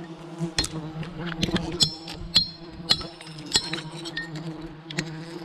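A swarm of wild honeybees humming steadily, with irregular sharp clicks and knocks, some with a brief metallic ring, about once or twice a second.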